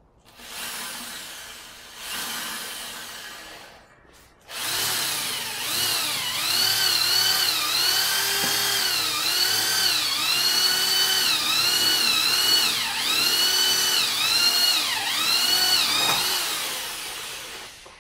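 Power drill driving a 1/4" self-tapping screw into a steel frame. Two short bursts come first, then after a brief stop one long run. Through the long run the motor's pitch sags and recovers about once a second as the screw's drill point cuts into the steel.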